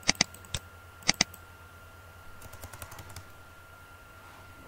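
Computer keyboard and mouse clicks: two pairs of sharp clicks near the start and about a second in, then a quick run of fainter key presses a little later, as the text in a file-name field is deleted.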